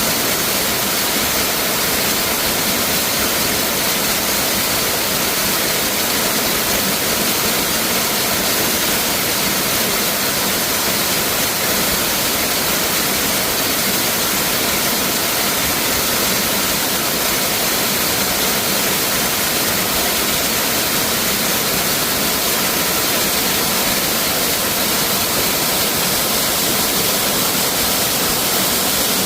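Waterfall pouring steadily: a constant rushing hiss of falling water, heavy in the highs with little low rumble.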